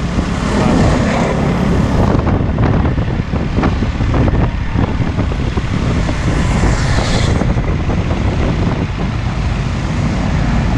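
Hino Ranger truck's diesel engine running as the truck drives past close by, over a steady low road rumble, with a brief hiss about seven seconds in.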